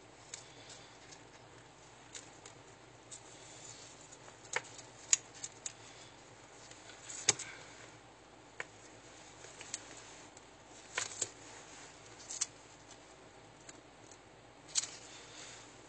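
Gloved hands handling adhesive tape around a plastic endotracheal tube: faint rustling and crinkling with scattered sharp clicks and ticks, a few of them louder.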